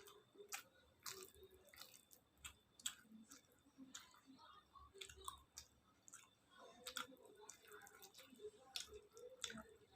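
Faint chewing of khichuri and fried vegetables, close to the microphone: irregular wet mouth clicks and lip smacks.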